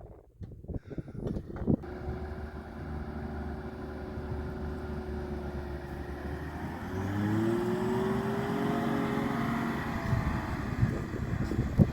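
A vehicle engine starts running about two seconds in, holding steady. About seven seconds in its pitch rises and it gets louder as it accelerates.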